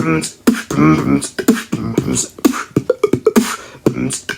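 Beatboxing: quick sharp vocal kick and snare clicks in a steady rhythm, mixed with short hummed, pitched notes.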